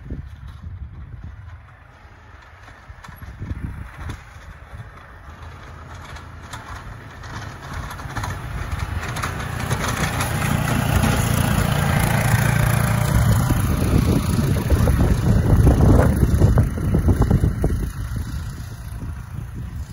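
Kubota Side Kick utility vehicle running and pushing snow with its KFI snowplow blade; the engine grows louder as it comes near, is loudest as it passes close by, then fades as it drives away.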